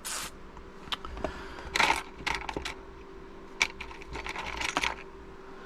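Light clicks, taps and short scrapes of small plastic parts being handled, as the Chromebook's broken screen and its latched-down cable connector are worked loose, a dozen or so irregular clicks with a brief cluster about two seconds in and another near the end.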